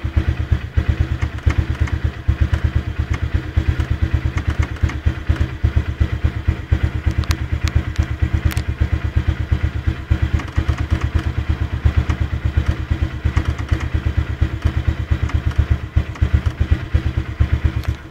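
Honda CBF 150's single-cylinder four-stroke engine idling steadily, an even low pulsing beat with no revving.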